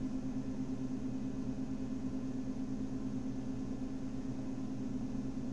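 Steady low hum with a faint hiss underneath, even throughout with no other events: background hum picked up by the microphone.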